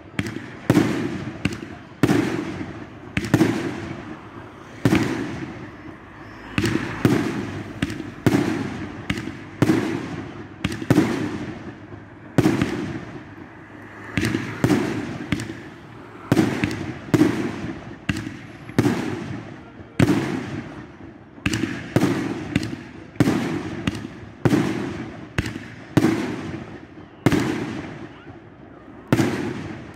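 Aerial fireworks bursting in a rapid, steady series of sharp bangs, about one and a half a second and often in close pairs. Each bang trails off in a short crackling echo.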